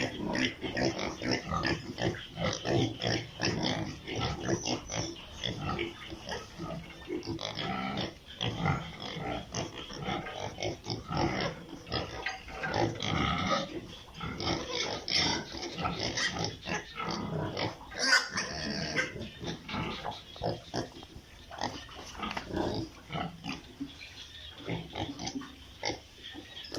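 A pen full of piglets grunting and squealing, many short overlapping calls without a break, with one louder, sharper noise about two-thirds of the way through.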